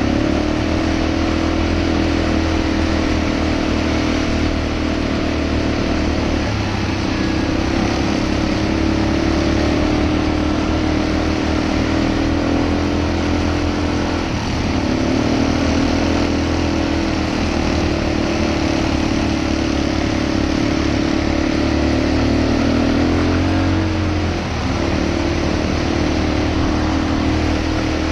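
ATV engine running steadily under way, its pitch dropping and picking up again about three times as the throttle is eased and reopened, over a steady rush of road and wind noise.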